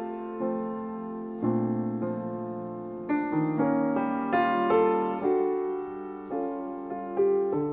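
Background piano music: notes and chords struck roughly once a second, each ringing and fading.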